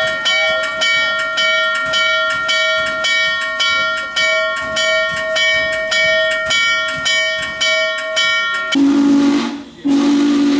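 A steam locomotive's bell ringing steadily, about two strokes a second, then stopping near the end, when the locomotive's steam whistle sounds two blasts with a short gap between them.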